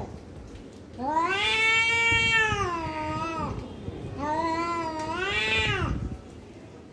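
Domestic cats caterwauling in a standoff: a long drawn-out yowl about a second in, then a second yowl, both wavering in pitch. This is the warning yowling of cats squaring up before a fight.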